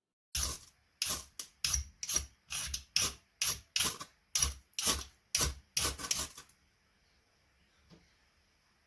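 Metal striker scraped repeatedly down a wooden-handled ferrocerium fire steel rod to throw sparks: about fifteen quick rasping strokes, two or three a second, which stop after about six seconds.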